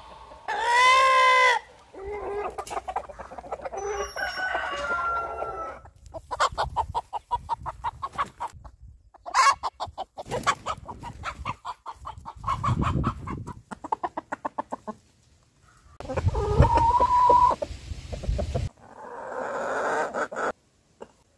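Domestic roosters and hens calling: a rooster crows loudly near the start, followed by clucking and long runs of rapid, repeated short calls. A second drawn-out call comes about three-quarters through, and a flock clucks together near the end.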